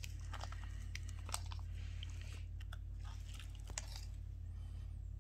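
A small piece of polythene sheet being cut and handled: irregular crisp crackles and snips, over a steady low hum.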